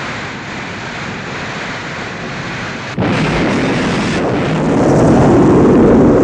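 Film sound effects of a building fire: a steady roar of flames, then about three seconds in a sudden explosion that keeps going as a louder roar, swelling toward the end.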